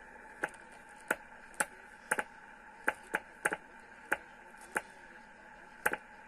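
Rotary mode selector switch on a Kenwood TS-530S transceiver clicking through its detents: about a dozen sharp clicks at uneven intervals, some in quick pairs. Under them is the receiver's steady hiss with faint steady tones.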